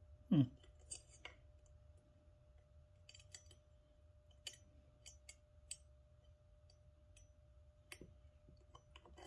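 Scattered light metallic clicks and ticks as needle-nose pliers work the starter pawls and their springs on a small two-stroke chainsaw's flywheel. A brief low sound falling in pitch comes about half a second in, and a faint steady tone runs underneath.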